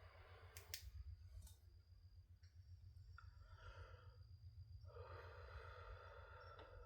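Near silence over a steady low hum, with two faint clicks in the first second and a half and a person breathing out softly twice, around the middle and near the end.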